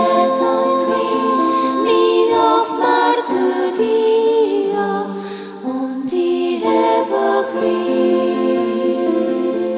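Slow music of long held sung notes, choir-like, changing pitch step by step.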